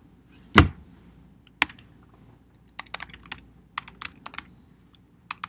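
Computer keyboard being typed on, keystrokes coming in short bursts of a few clicks with pauses between, as a line of code is entered. About half a second in there is a single louder knock.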